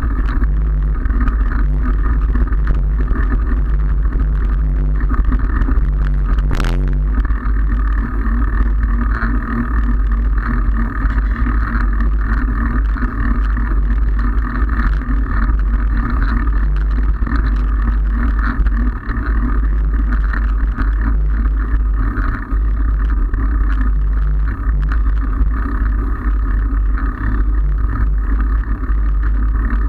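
Wind buffeting the microphone of a handlebar-mounted camera on a moving bicycle, mixed with tyre and road noise, steady throughout. A single sharp click about seven seconds in.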